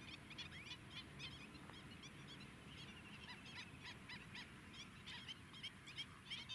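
A flock of greater flamingos calling: many short calls overlapping in a faint, continuous chorus.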